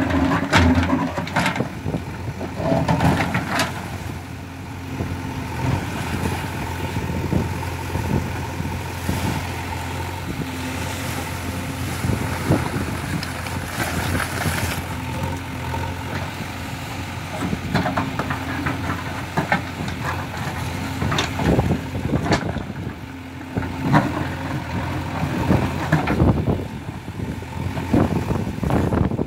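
The diesel engine of a JCB 3DX backhoe loader runs steadily, rising and falling as the backhoe arm digs and swings. Short knocks and clanks come now and then.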